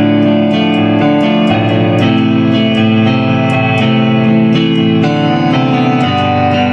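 Solo instrumental music played without drums: sustained chords that change every second or two, with light, evenly spaced note attacks over them.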